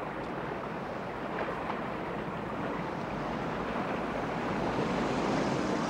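Steady rushing ambient noise, without clear strikes or tones, growing slowly louder.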